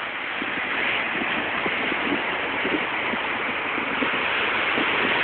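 Surf breaking and washing up the beach, a steady rushing noise that grows a little louder in the first second.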